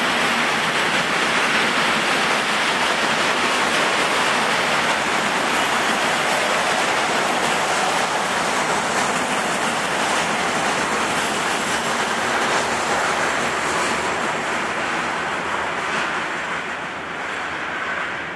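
Freight wagons of a long train rolling past: a steady rushing rumble of steel wheels on the rails, easing a little in the last couple of seconds.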